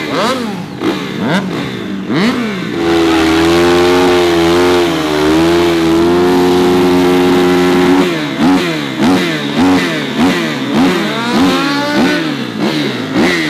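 Stunt vehicle engine revved in quick blips, then held at high revs for about five seconds during a tyre-smoking burnout, then blipped again.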